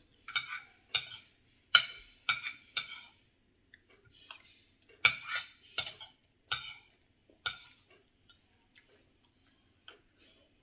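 Metal fork clinking and tapping against mussel shells and a ceramic plate while picking out the meat: a dozen or so sharp, irregular clinks, thinning out and fainter after about eight seconds.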